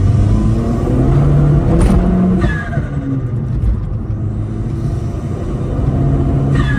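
Vauxhall Z20LEH 2.0-litre turbocharged four-cylinder engine accelerating hard, its pitch rising, then the throttle shuts about two and a half seconds in with a short falling whoosh from the turbo. It then pulls and rises again near the end, loud with the windows open.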